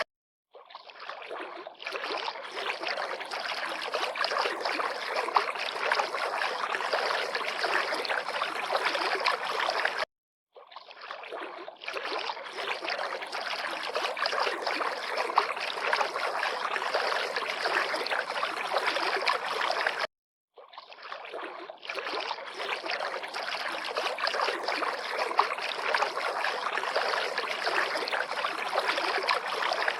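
River water lapping and splashing in a steady, even wash. It cuts out to silence briefly three times, about ten seconds apart, and fades back in each time: a short recording looped.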